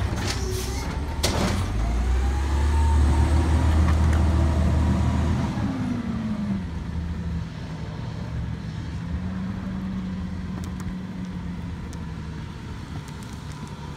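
Natural-gas automated side-loader garbage truck: a few clunks in the first second or so as the arm sets the cart down, then the engine rises as the truck pulls away. The engine note falls about six seconds in and the truck fades as it drives off.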